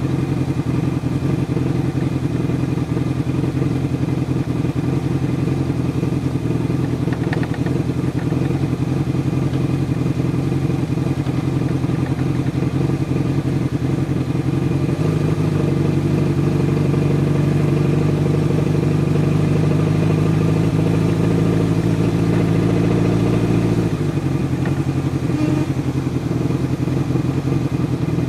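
Motorcycle engine running while riding, heard from on the bike. About halfway through, the engine note smooths out and climbs slightly for several seconds, then drops back to a lower, choppier pulsing sound.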